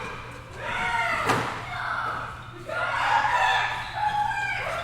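Children shouting and shrieking at play in a gymnasium hall, several high voices overlapping, with a single sharp thud about a second in.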